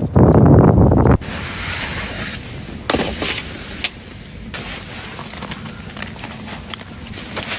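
Wind buffeting the microphone with a low rumble, cut off abruptly about a second in. After that comes a steadier, quieter hiss with scattered small clicks and crackles.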